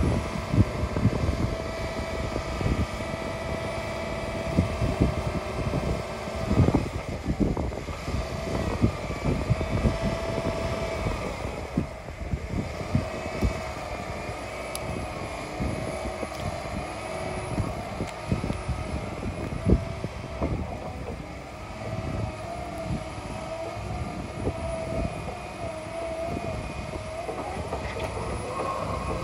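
Diesel engine and hydraulics of a 2015 Tigercat 875 log loader running while the boom and grapple are worked, its steady drone overlaid with whining tones that rise and fall as the hydraulics move. Irregular low thumps and knocks come through throughout.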